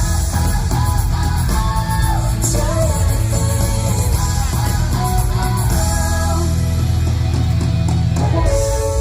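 Pop-rock show music with guitar, a steady heavy bass and a sung melody.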